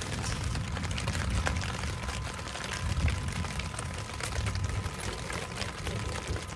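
Steady rain pattering on the tent fabric, heard from inside the tent as a dense hiss of fine ticks, with a low rumble underneath.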